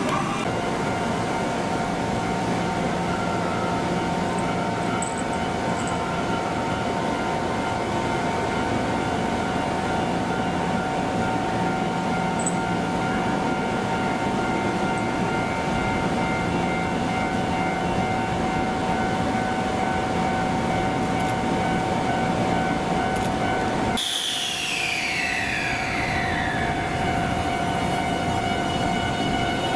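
Electric trains at a station, with the limited express Shinano pulling out on a neighbouring track: a steady electric whine in several even tones over a rumble. About 24 seconds in the sound changes abruptly, and a whine falls in pitch over a few seconds.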